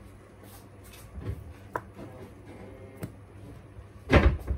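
Kitchen knife slicing through a block of luncheon meat and knocking on a plastic cutting board: a few scattered knocks, the loudest about four seconds in.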